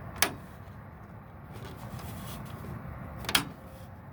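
Toggle switches in a traffic signal control cabinet being flipped by hand: two sharp clicks, one just after the start and one about three seconds later, over a low steady hum.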